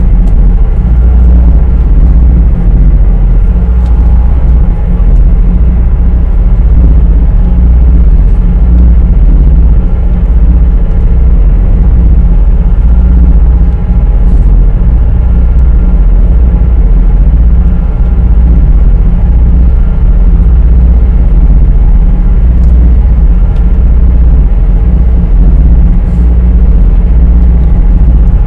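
High-speed passenger boat's engines running at cruising speed, a steady deep rumble heard inside the cabin, with a few faint steady tones above it.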